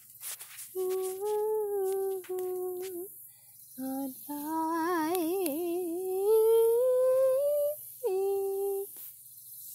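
A person humming a slow tune in held notes, with short breaks between phrases; about five seconds in one note wavers, then the pitch rises slowly before a final held note.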